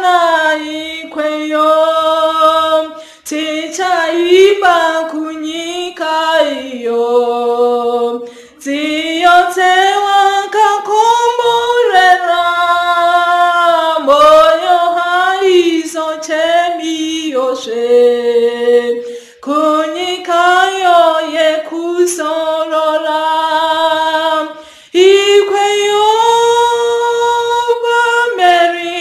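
A woman singing a Shona hymn solo and unaccompanied, with long held and sliding notes. Brief pauses for breath fall between phrases.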